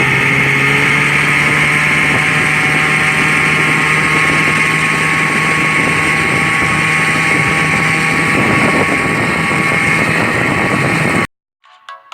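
Small gas outboard motor running at steady high throttle, pushing a loaded inflatable boat on plane, with wind on the microphone. It cuts off abruptly near the end, and chiming music starts.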